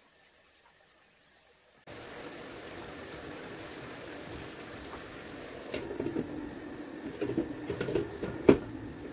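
Chicken livers sizzling in a deep nonstick pan: a steady hiss that starts suddenly about two seconds in, after near silence. Over the last few seconds a glass pan lid clinks and knocks against the pan as it is set on, with one sharp knock near the end.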